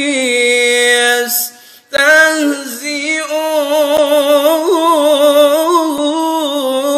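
A man's voice chanting Quran recitation in the melodic tajweed style, drawing out long wavering notes with ornamented turns, with a short breath pause about a second and a half in.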